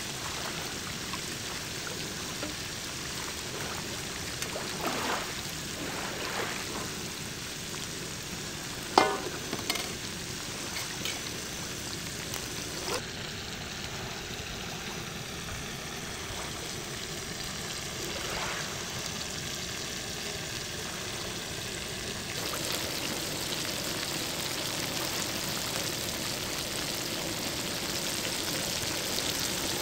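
Whole fish frying in a pan of hot oil on a portable gas stove, a steady sizzle. A few sharp clicks and knocks fall in the first half, the loudest about nine seconds in, and the sizzle is a little louder over the last third.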